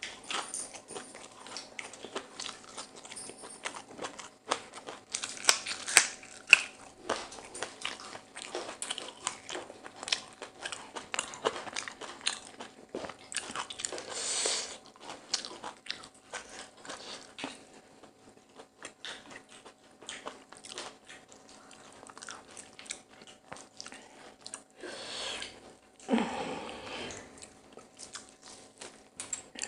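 Close-miked biting and chewing of crispy-coated whole chicken, with crunching and the crackle of the meat being torn apart by hand. There are louder crunchy stretches about halfway through and near the end.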